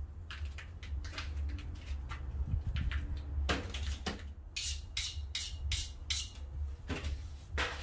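Steel knife blade being stroked back and forth across a handheld sharpening stone: a run of short scraping strokes, about four a second, in the second half, over a low steady hum.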